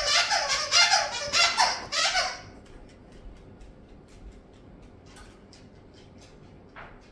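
A dog baying in a rapid run of high, wavering cries that stops about two seconds in, followed by faint scattered ticks.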